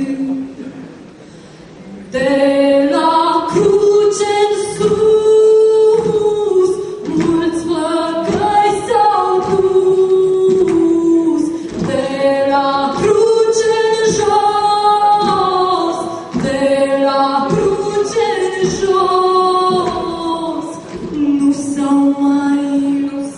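A woman's voice and a children's choir singing a slow song, with long held notes. The opening note fades into a brief lull, and the singing comes back in about two seconds in.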